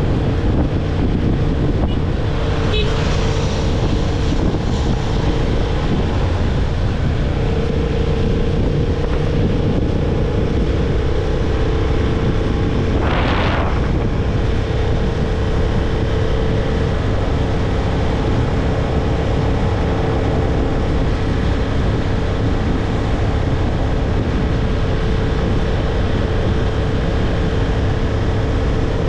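Honda CB750 Hornet's parallel-twin engine running at a steady cruise, with heavy wind noise on the helmet microphone. A brief swell of rushing noise comes about halfway through, and the engine note starts to rise near the end.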